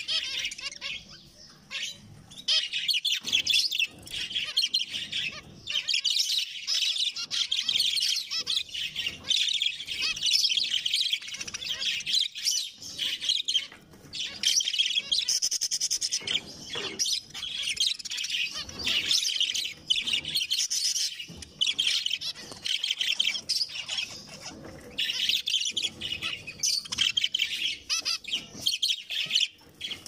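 Caged zebra finches chirping, a nearly continuous chatter of short high calls from several birds, with a few brief lulls.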